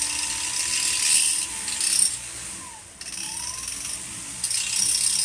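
Handheld rotary tool running, grinding the sharp edges off the freshly cut end of a metal sling stud, with a high grinding hiss each time the bit bears on the metal. About halfway through, the motor's whine falls away and then climbs back up as it is restarted.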